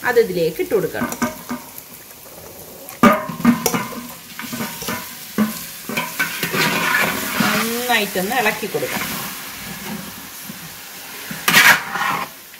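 Hot oil sizzling in a copper biriyani pot as mutton masala is stirred with a metal ladle. The ladle scrapes the pot and knocks sharply against it, loudest about three seconds in and again near the end.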